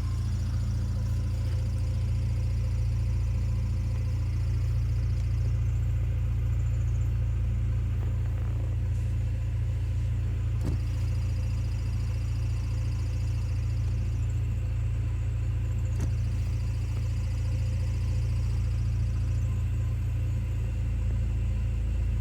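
Car engine idling with a manual transmission, with a faint high squeak from the transmission that cuts in and out several times. The squeak goes away when the clutch pedal is pushed in, which the owner suspects is a worn throwout bearing.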